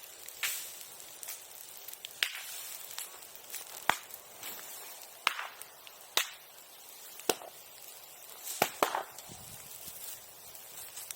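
Bonfire of old silkworm-raising equipment crackling, with sharp, irregular pops about once a second over a faint hiss.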